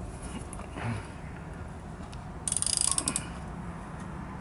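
Ratchet wrench with a 12 mm socket on a motorcycle engine's oil drain plug, its pawl giving a quick run of rapid clicks for under a second about halfway through.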